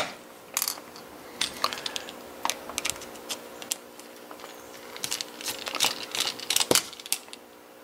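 Scattered light metallic clicks and scrapes of a small steel tool working at the face of a brass Marks lock cylinder, over a faint steady hum.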